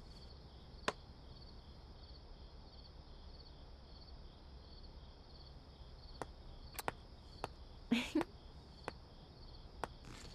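Crickets chirping steadily in an even pulsing rhythm, about two chirps a second. A few sharp clicks and a brief knock break in during the last few seconds.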